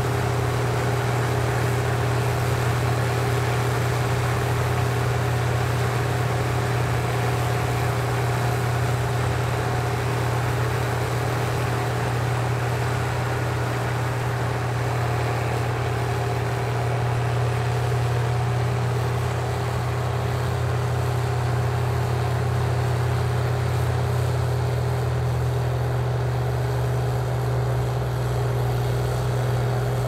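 Case IH 1660 Axial-Flow combine harvesting corn with its corn head: a steady, unchanging diesel engine drone with a constant hum of threshing machinery over it.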